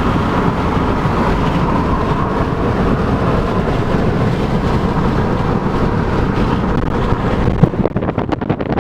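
Steady rushing noise of a moving vehicle, turning near the end into irregular wind buffeting on the microphone.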